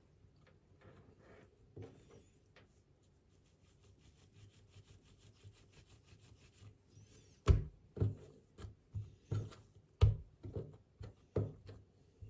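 Objects being handled and set down: a few soft taps at first, then a run of sharper knocks and clunks in the second half.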